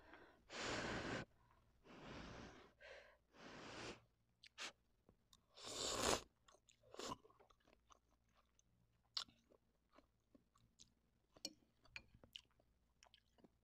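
Eating instant noodles off a fork: several noisy, breathy slurps in the first six seconds, the loudest about six seconds in, then quiet chewing with small mouth clicks.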